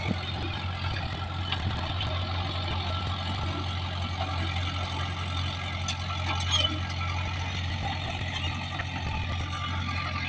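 Komatsu D20PL bulldozer's diesel engine running at a steady drone, with a few scattered sharp clanks over it.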